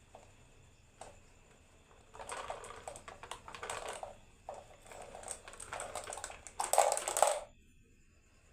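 Marbles rattling and clicking as they roll down a wooden marble run, a dense clatter that builds over several seconds, is loudest just before it stops near the end.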